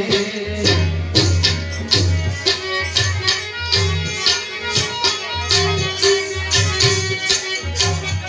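Instrumental interlude of a Gujarati folk bhajan: a harmonium holds a steady reed note over a hand drum and jingling, rattling hand percussion beating a fast, even rhythm.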